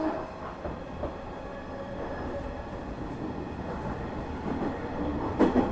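Hanshin 1000 series electric train running, heard from inside the car: a steady rumble of wheels on rail. The motor's tone dies away at the start, and a loud rail-joint clack comes near the end.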